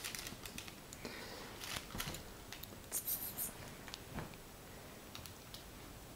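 Light scratching, rustling and soft thumps of a kitten scampering and clawing over a fabric sofa, with a short burst of rustling about three seconds in.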